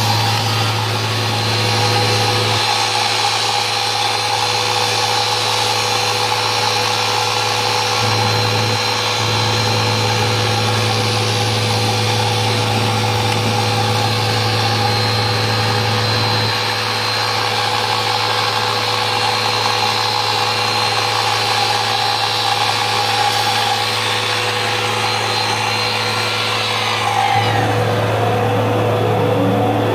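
CNC router running with a steady whine and hum. The low hum steps louder and softer several times, and near the end the high-pitched tone stops and pitches glide as the machine changes speed.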